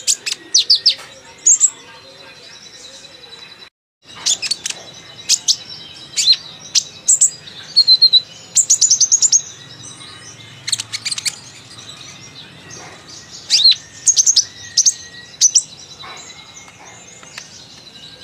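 Kolibri ninja sunbird singing a chattering song of rapid, high-pitched chirps and short trills, some sliding up or down, in irregular bursts, with a moment of silence about four seconds in.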